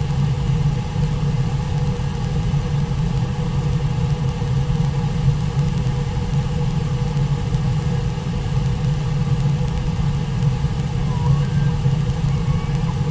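Steady, deep rush of fast-flowing river water from the Brooks River running through its rapids at Brooks Falls.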